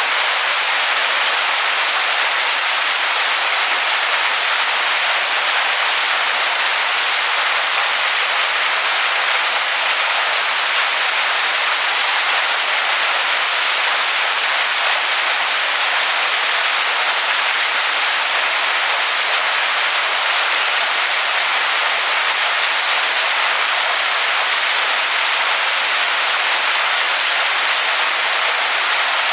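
Waterfall splashing onto rocks: a steady, even rush of falling water, mostly high hiss with hardly any low rumble.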